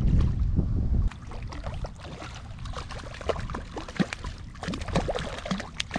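Hooked brown trout thrashing and splashing at the water's surface while being played on a fly line: a run of sharp, irregular splashes. For about the first second, wind buffets the microphone with a low rumble that then stops.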